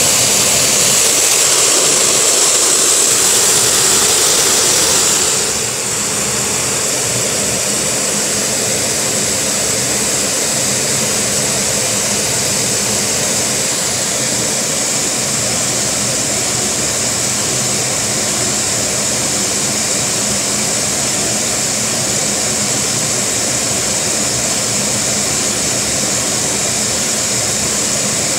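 Vacuum cleaner running steadily, its suction driving a Lego vacuum engine at a slow idle. About five seconds in, the high rushing hiss of the air drops a little and then holds steady.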